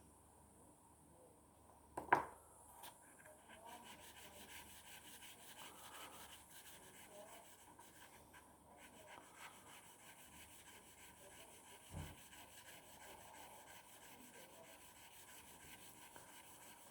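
A stainless steel broadhead blade rubbed along wet wet-and-dry sandpaper with light pressure: faint, steady rubbing strokes that start about three seconds in. A sharp knock comes about two seconds in, and a softer one later on.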